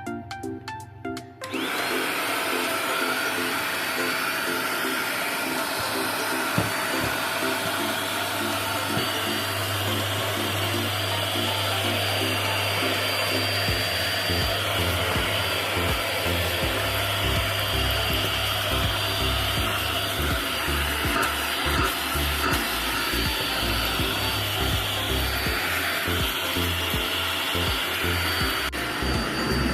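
Eureka Forbes Stick Vac NXT 600-watt corded stick vacuum cleaner switching on about a second and a half in and then running steadily: a loud, even motor hiss with a thin high whine over it.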